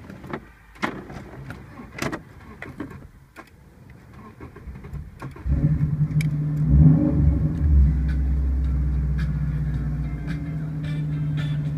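A screwdriver clicks and scrapes in a car's ignition switch, where the lock cylinder has been removed. About five and a half seconds in, the car's engine starts, runs louder for a couple of seconds, then settles into a steady idle.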